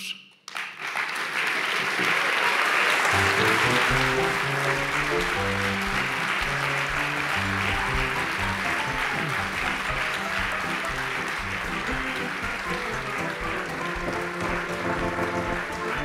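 Audience applauding at the end of a talk, with background music coming in about three seconds in and playing under the clapping, which slowly thins.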